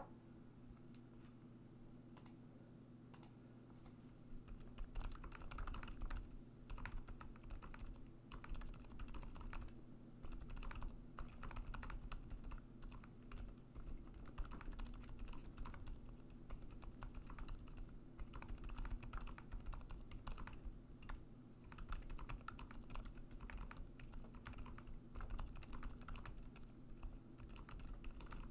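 Fast typing on a kbdfans D84 v2 mechanical keyboard with lubed and filmed Durock Dolphin silent linear switches, Durock stabilizers and PBT Cherry-profile keycaps: quiet, muted keystrokes in a rapid stream, starting about four seconds in.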